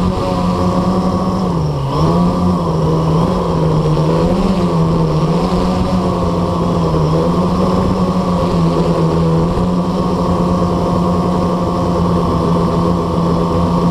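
Blade 350QX quadcopter's four brushless motors and propellers humming steadily, heard close up from on board. The pitch dips and wobbles for a few seconds as the throttle adjusts, then holds level.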